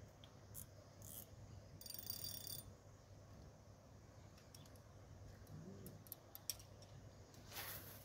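Faint handling of a spinning rod and reel: a short rattling whirr from the reel about two seconds in and a few light clicks, then a brief swish near the end as the rod is cast.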